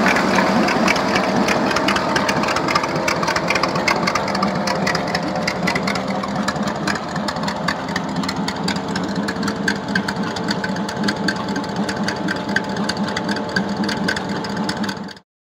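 6.0-litre LQ9 V8 in a hot-rod truck idling steadily, with a rapid ticking clatter over the running note. It cuts off suddenly near the end.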